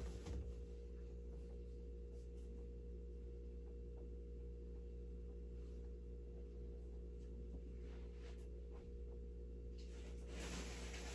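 Quiet room tone dominated by a steady low electrical hum, with a few faint ticks and a brief rustle about ten seconds in.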